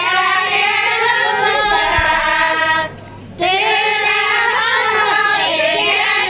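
Women's choir singing a Hungarian folk song; the phrase ends about three seconds in, there is a brief breath pause, and the next phrase begins.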